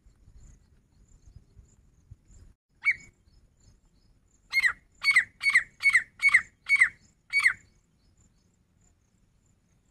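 Grey francolin calling: a single sharp note about three seconds in, then a run of seven rising notes, about two a second.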